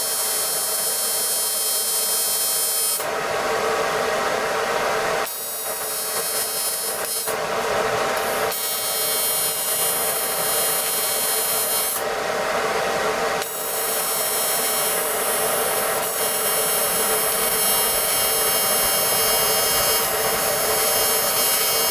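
AC TIG welding arc running a bead on aluminum: a steady buzzing, crackling hiss with a high whine, its tone shifting several times along the way.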